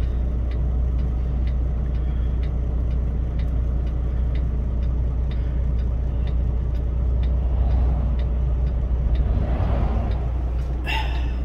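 Inside a Kenworth T680 cab at highway speed: the steady low drone of the diesel engine and road noise, with a faint regular ticking about twice a second. Near the end a rushing sound swells as other trucks pass close alongside.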